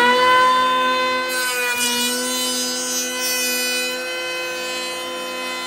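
DEWALT 20V MAX brushless cordless planer (DCP580B) running at full speed with a steady high whine, taking a light pass with the grain on a board. A hiss of shaving wood joins about a second in, and the motor's pitch dips slightly under the load.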